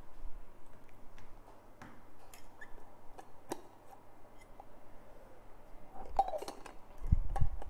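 Quiet room tone with scattered small clicks and taps, a short cluster of clicks near the end, and a low thump just before it finishes.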